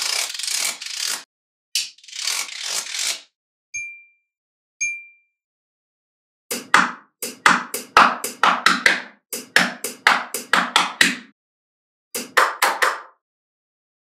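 Small magnetic balls clicking and clattering against each other as they are snapped into rows by hand, in quick runs of rapid clicks. There are two brief high pings near the middle.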